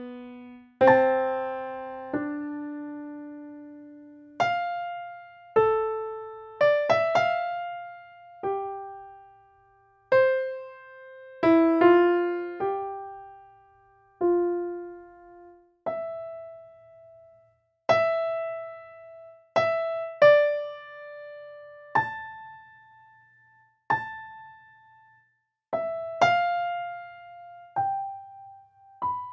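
Solo piano playing a slow, sparse melody, mostly single notes one to two seconds apart. Each note is struck and left to ring and fade, with brief near-quiet gaps between some of them.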